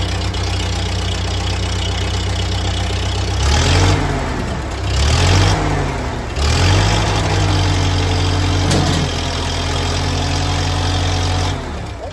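Petrol engine, just started on choke and fed petrol by gravity from a jug. It is revved up and down two or three times, then held at a faster steady speed for about five seconds, and drops back to a lower speed near the end.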